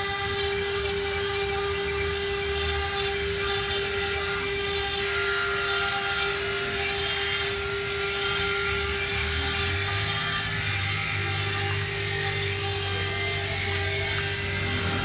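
CNC stone-engraving machine's high-speed spindle running with a steady whine as it cuts stone.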